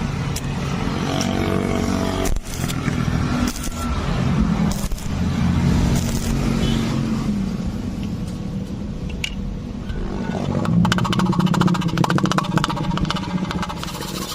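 Electric arc welding: a low, steady buzz with a crackling arc, the crackle growing dense and fast about ten and a half seconds in.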